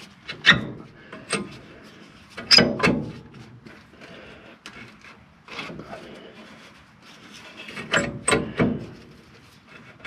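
Metal clanks and scrapes from working the front disc brake caliper and pads loose on an M1009 CUCV. A few sharp knocks with short rings come in clusters around three seconds and eight seconds in.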